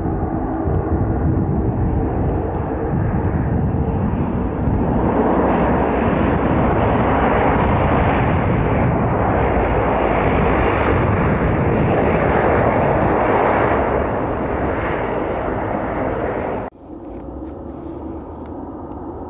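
De Havilland Canada Dash 8 turboprop running on the runway, its engines and propellers droning steadily and growing louder about five seconds in. About three seconds before the end the sound cuts off abruptly to a fainter, steady aircraft hum.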